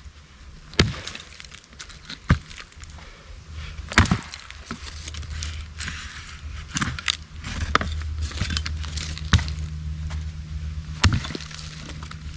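Firewood being chopped and broken up: sharp woody cracks and knocks, one every second or few, with crackling and rustling of sticks between them. A low steady hum runs underneath.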